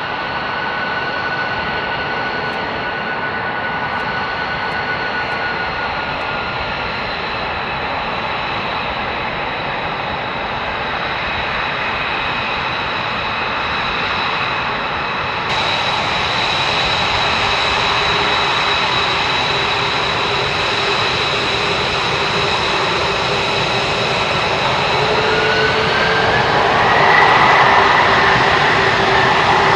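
Jet engines of several F-22 Raptors taxiing, their twin Pratt & Whitney F119 turbofans running at low power with a steady whine made of several high tones. About 25 seconds in a new tone rises and the sound grows louder.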